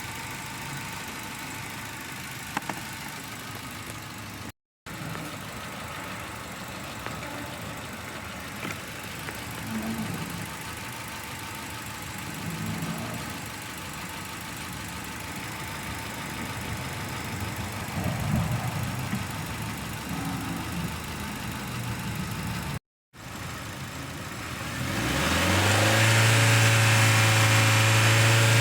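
Dongfeng Glory engine idling unevenly with a misfire, then revved up about 25 seconds in and held at high revs. At high revs the crankcase pressure shows compression leaking past the rings on several cylinders.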